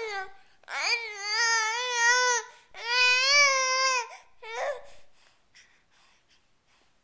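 Infant crying: two long, wavering wails, then a short whimper about four and a half seconds in, after which the crying stops.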